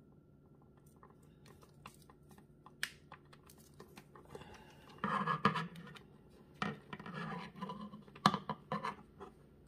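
Scratching and clicking of hand work with wire strippers on thin low-voltage light wire at a small connector. It grows louder about five seconds in, with a few sharp clicks.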